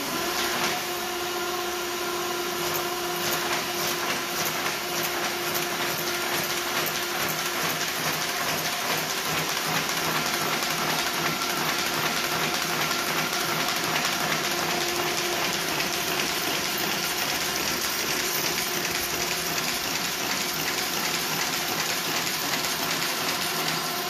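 Shoei K56 buckle-and-knife paper folding machine running: a steady mechanical whir with a fast, even clatter running through it. A low hum under it fades out about eight seconds in.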